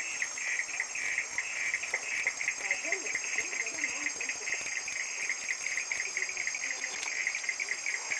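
Crickets chirping in a steady chorus: a fast pulsing trill with a steady high whine above it.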